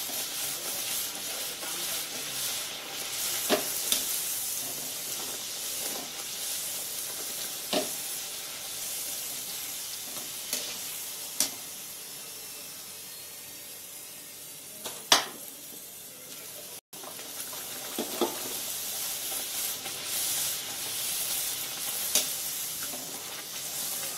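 Puris deep-frying in hot oil in a kadhai, the oil sizzling steadily, weaker in the middle and stronger again toward the end. A slotted metal skimmer clinks against the pan every few seconds as the puris are pressed, turned and lifted, with the sharpest clink about halfway through.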